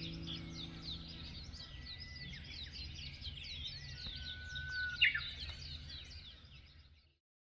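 A chorus of small birds chirping, many quick high calls overlapping, with one sharper, louder call about five seconds in. It fades out shortly before the end.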